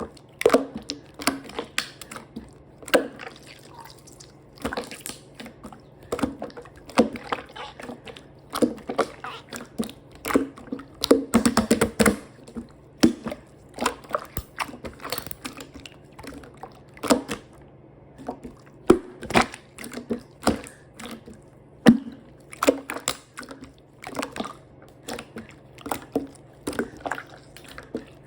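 Slime being squished and poked by hand, giving irregular wet clicks and pops, with a quick run of them about eleven to twelve seconds in.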